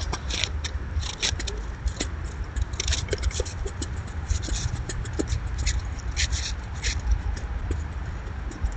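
Squirrels clambering on hanging seed feeders, their claws scraping and clicking in quick irregular bursts, over a low steady rumble.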